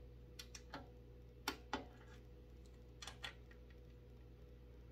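Torque wrench tightening the breather banjo bolts on a Harley-Davidson Milwaukee-Eight engine: a few sharp clicks, the loudest in two pairs about a quarter second apart, near one and a half seconds and again near three seconds.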